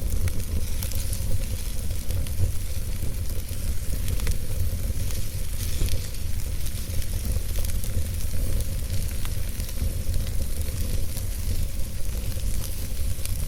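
Campfire burning: a steady hiss with many small, sharp crackles and pops scattered through it, over a steady low rumble.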